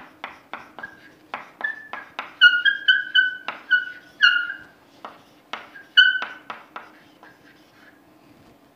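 Chalk writing on a blackboard: quick taps and scrapes of the strokes, many ending in short high squeaks, most squeaky in the middle and again about six seconds in, then only faint taps near the end.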